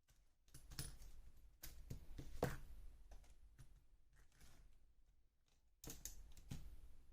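Scattered light clicks and knocks of small RC car drivetrain parts being handled and taken apart. The loudest knock comes about two and a half seconds in, and another short cluster of clicks about six seconds in.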